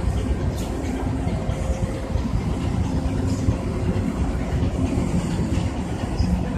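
Steady low rumble of a boat's diesel engine, with a few faint held tones above it and no pauses.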